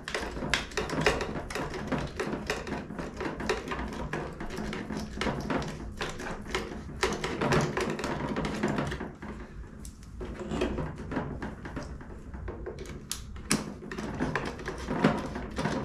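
Irregular small clicks and knocks of metal parts being handled as a worm-drive hose clamp (Jubilee clip) is fitted and tightened with a screwdriver around a hose on a diesel air heater.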